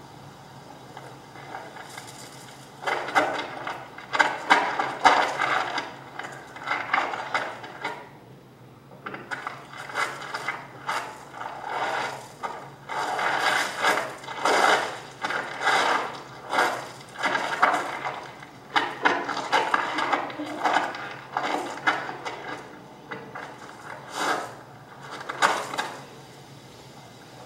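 Electroacoustic music score made of dense clicking, clattering and scraping sounds that come in irregular bursts a second or two long, starting about three seconds in, pausing briefly near the middle, and stopping shortly before the end.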